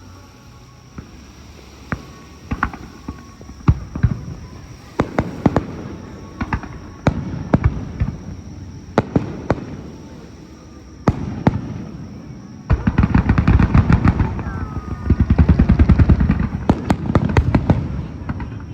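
Aerial fireworks going off: separate booms of shells bursting, then, about two-thirds of the way in, a dense barrage of rapid bangs and crackling.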